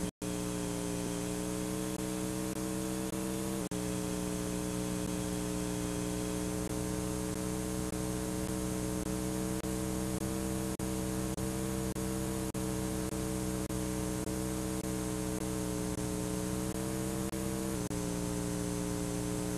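Steady electrical hum with hiss from blank videotape playing after the recording ends, with a couple of brief glitches.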